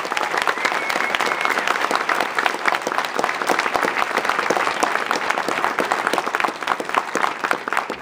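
Audience applauding, dense steady clapping from a large crowd in a school auditorium.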